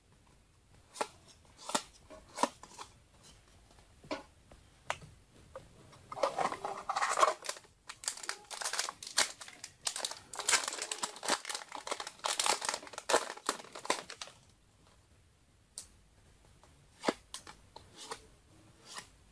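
Foil wrapper of a Yu-Gi-Oh! booster pack crinkling and tearing open, with light clicks of trading cards being handled. A few scattered clicks come first, then several seconds of dense crinkling start about six seconds in, and a few clicks follow near the end.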